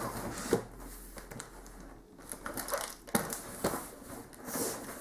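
Cardboard parcel wrapped in packing tape being handled and turned over by hand: rustling and scraping of cardboard and tape, with a few sharper scuffs.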